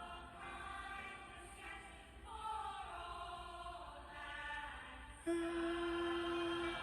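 Choir singing slow, sustained chords. About five seconds in, a single steady note comes in louder and holds.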